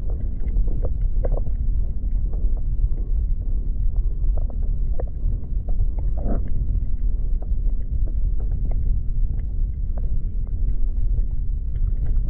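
Steady, uneven low rumble of wind buffeting the microphone, with scattered light clicks and knocks.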